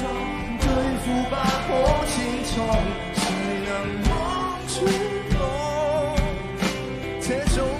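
Live pop-rock band playing under a sung chorus, with drums, guitar and bass. The melody wavers with vibrato in places.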